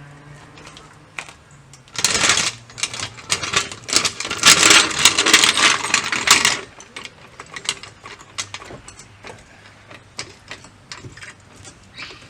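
Floor jack clattering and rattling loudly on the floor as it is moved into place under the car, for about five seconds starting two seconds in, followed by scattered lighter metallic clicks and taps.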